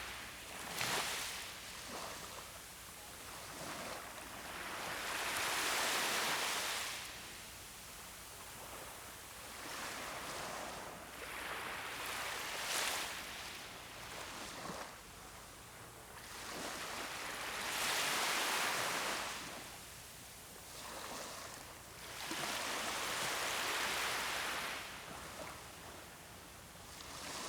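Sea waves breaking on a beach, a rushing hiss that swells and fades every five or six seconds.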